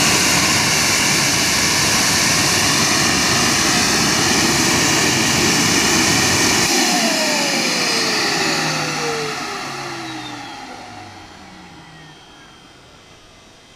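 Homemade Brayton-cycle jet engine built around a turbocharger, running loudly, then shut off about seven seconds in. The combustion noise cuts out and the turbine spools down with a falling whine that fades away.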